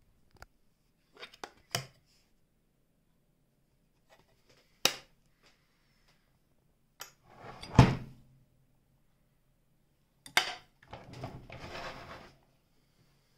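Scattered handling clicks and knocks, with the loudest knock, carrying a low thud, about eight seconds in, and a short scuffling stretch near the end. No motor is running.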